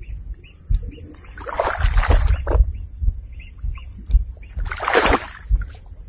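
Shallow swamp water splashing and sloshing in two bouts, one about a second and a half in and a louder one near the five-second mark, over low thumps.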